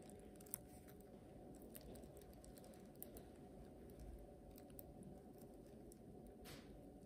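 Faint clicks and crinkles of a plastic piping bag being squeezed and doughnuts being handled as cream filling is piped in, over a low steady hum.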